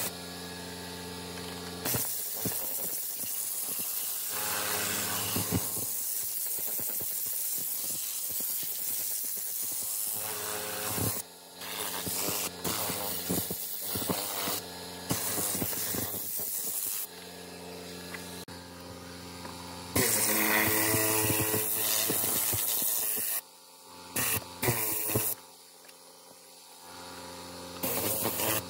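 Compressed air hissing in uneven bursts from a blow tool on a coiled air hose, blasting debris out of car seat crevices, over a steady motor hum.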